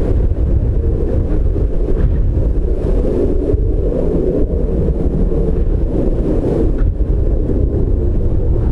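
Strong wind buffeting the microphone, with the steady hum of the Airbus A300F4-622R freighter's two jet engines at taxi power underneath as it turns onto the runway.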